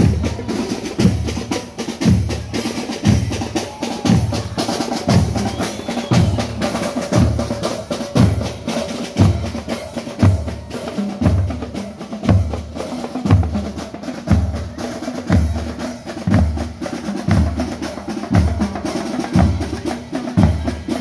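Marching band drum section playing a marching cadence: a bass drum strikes about once a second, with snare drum rolls and strokes between the beats.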